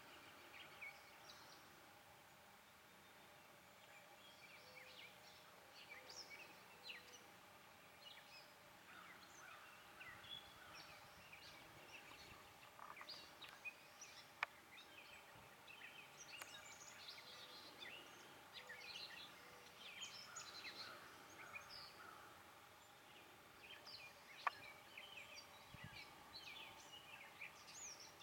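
Faint chorus of birds singing and calling, many short chirps and whistles overlapping, over quiet outdoor background noise. Two sharp clicks stand out, one about halfway through and one near the end.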